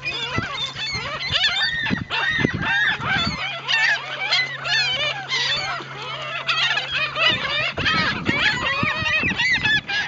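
A flock of gulls calling all at once: many short calls overlapping, each rising and falling in pitch.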